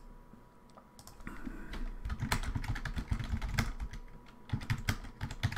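Typing on a computer keyboard: a quick, irregular run of key clicks starting about a second in.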